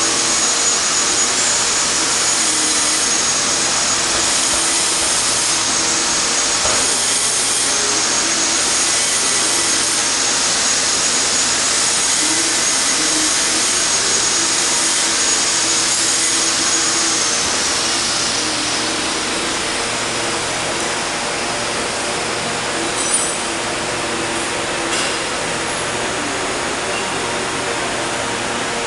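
TR-30NC thread rolling machine running with a steady mechanical noise and a high whine. The whine sinks in pitch and fades about 18 seconds in, leaving a slightly quieter running noise, with a sharp click a few seconds later.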